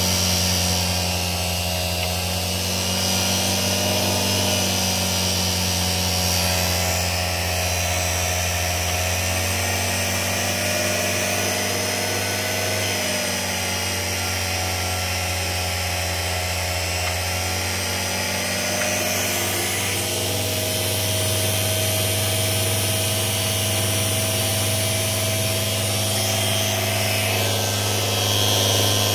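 A bench-mounted electric motor spins a Jawa/ČZ motorcycle dynamo under electrical load. It makes a steady motor whine over a low hum, with the pitch shifting slightly a few times.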